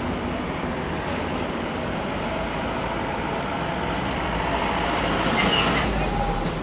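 Steady rumble of road traffic, swelling louder about five seconds in as a vehicle passes close by.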